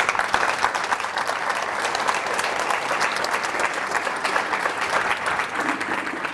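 Audience applauding, many hands clapping in a steady, dense crackle.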